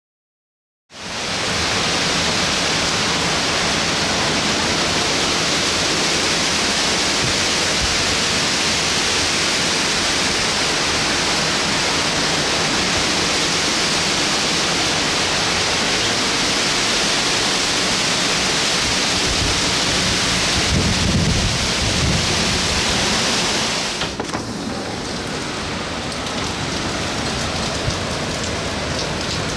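Hurricane wind and heavy rain, a steady loud rush that starts about a second in. Around three-quarters of the way through it drops somewhat and thins.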